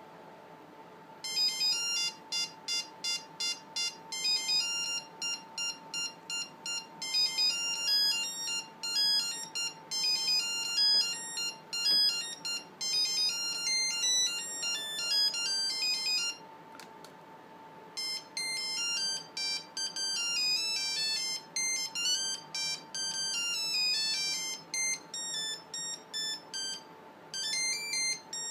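Nokia 5510 playing its original monophonic ringtones as rapid beeping melodies. One tune ends a little past halfway, and after a short pause a different tune begins.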